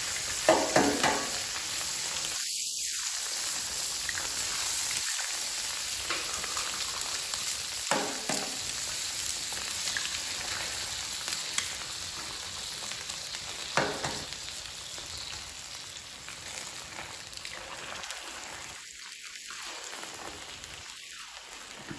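Eggs frying on a hot Blackstone flat-top griddle: a steady sizzle that slowly quiets in the second half. A few sharp taps and splats stand out near the start, about 8 seconds in and about 14 seconds in, as more eggs are cracked onto the griddle.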